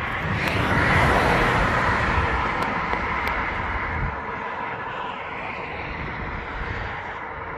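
Highway traffic: the continuous rush of tyres and engines of passing cars, swelling about a second in and easing off afterwards, over a low uneven rumble.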